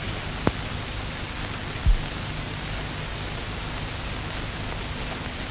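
Steady hiss and low hum of a worn old film soundtrack, with one sharp click about half a second in and a short low thump a little before two seconds.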